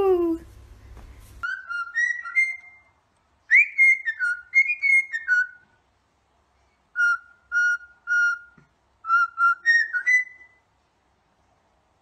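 Cockatiel whistling a tune in four short phrases of clear, stepping notes with pauses between them. A loud falling screech trails off at the very start.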